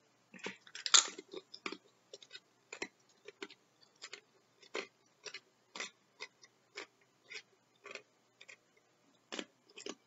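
Crunchy tortilla chip bitten and chewed close to the microphone. A loud crunch about a second in is followed by crisp crackles about twice a second as it is chewed.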